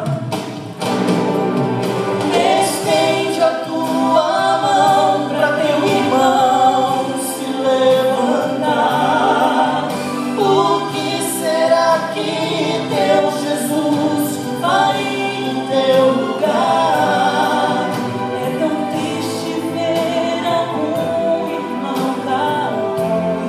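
A man and a woman singing a Portuguese Christian song as a duet into microphones, over musical accompaniment.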